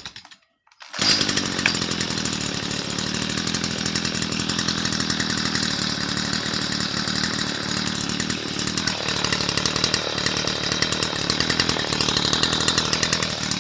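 Stihl FS55C brush cutter's small two-stroke engine running steadily. It cuts out for under a second at the start, then resumes abruptly at full level.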